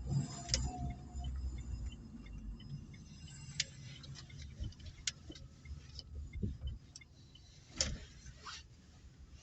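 Opel Meriva heard from inside the car: a low running rumble, with several sharp, irregular clicks and knocks.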